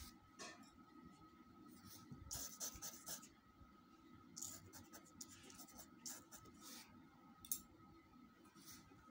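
Faint scratching of a pencil on drawing paper in short strokes and bursts, with one sharp click about seven and a half seconds in, over a faint steady whine.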